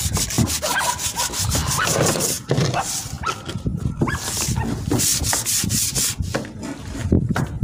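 Irregular rubbing and scraping noise of the camera being handled against cloth, with a fast run of clicks that stops about two and a half seconds in.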